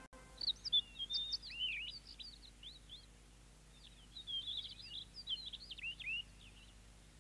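Birds chirping in two bouts of quick, high twittering calls, the first starting about half a second in and the second about four seconds in, with a short lull between.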